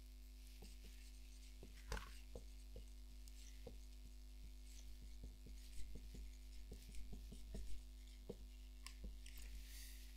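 Faint scattered taps and scratches of hand writing, over a steady low electrical hum.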